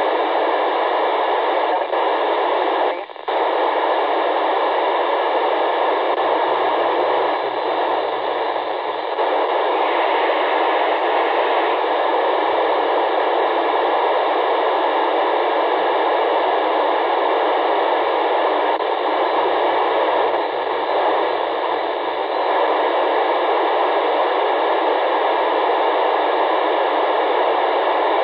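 Steady hiss from an FM radio receiver tuned to the SO-50 amateur satellite's downlink, with a brief dropout about three seconds in.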